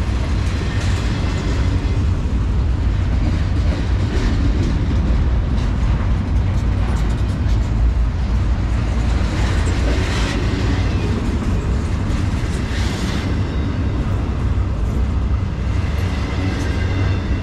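Empty double-stack well cars of a Norfolk Southern intermodal freight train rolling slowly past: a steady low rumble of steel wheels on rail, with brighter metallic squeals and clanks now and then.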